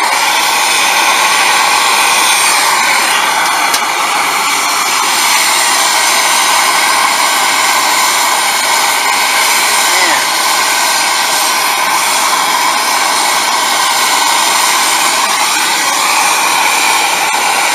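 Hand-held MAP-gas torch burning with a steady hiss, its flame heating a copper line-set joint at an AC condenser's service valve for brazing.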